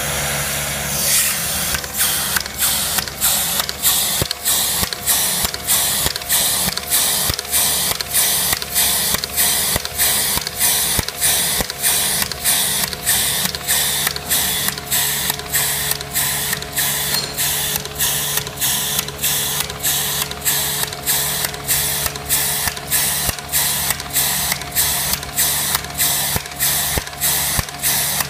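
Semi-automatic capsule filling machine running: a steady motor hum under a regular mechanical clatter about twice a second as the capsule feeding station cycles, loading empty capsules into the rotating capsule ring.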